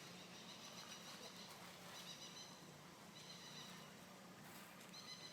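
Faint high-pitched squealing calls of a young monkey: four short cries spaced about a second apart, over a faint steady hum.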